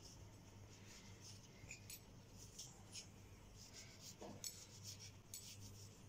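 Faint knife strokes cutting through crisp pan-fried flatbread and scraping on a hard surface, in an irregular series of short scratches, over a low steady hum.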